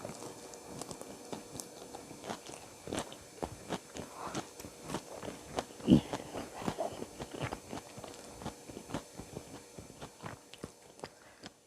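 Close-up chewing and crunching of food, a steady run of small wet clicks and crackles, with one much louder knock about halfway through.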